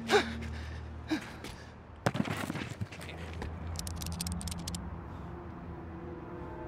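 Last rifle shots from an assault rifle near the start, then a clattering fall about two seconds in as the shot villain and his metal claw hand hit the rooftop. A quick run of small metallic clicks follows around four seconds, over a low, steady music drone.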